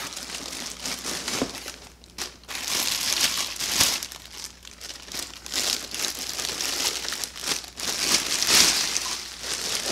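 Clear plastic bag crinkling and rustling as it is handled and pulled around a cordless string trimmer's power head, loud and soft by turns.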